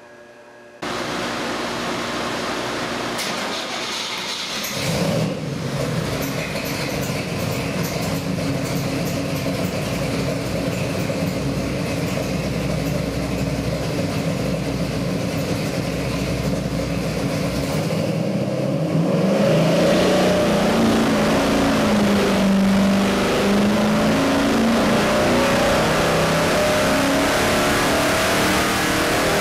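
Chevy 454 big-block V8 crate engine running on the dyno. It comes in abruptly about a second in and runs steadily, then about two-thirds of the way through the revs climb and it holds at high rpm, louder, for a dyno pull.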